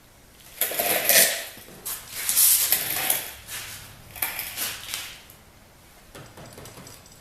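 Rattling and scraping of hard parts and tools in several bursts over about four seconds, then a shorter one near the end, as a stubborn engine shroud on a snowblower is worked loose.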